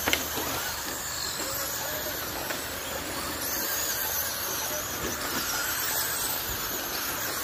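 A pack of electric Traxxas Slash RC short-course trucks racing on dirt: motor whine rising and falling over a steady hiss of tyres and gravel, with one sharp knock right at the start.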